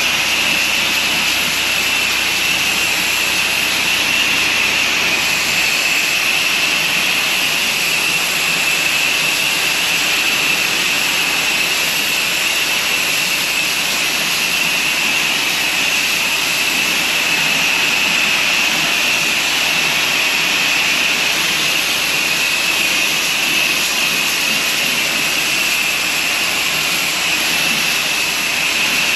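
Pressure washer spraying water: a loud, steady hiss of the jet with no breaks.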